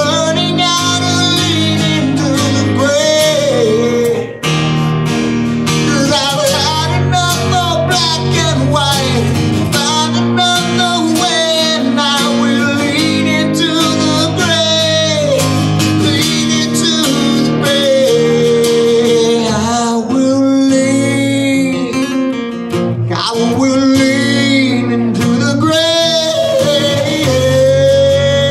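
A man singing a song live into a microphone while strumming chords on an acoustic guitar.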